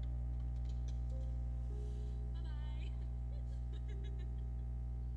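A steady low electrical hum, with faint, high-pitched girls' laughter in short repeated bursts from about halfway through.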